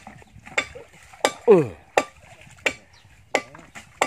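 A regular 'puk puk' knocking, sharp knocks about every two-thirds of a second. About one and a half seconds in, a short pitched sound falls steeply and is the loudest thing heard.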